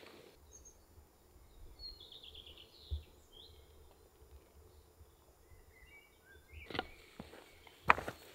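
Faint birdsong: a quick run of high chirps about two seconds in, then a few lower notes, over a quiet background. Two footsteps near the end.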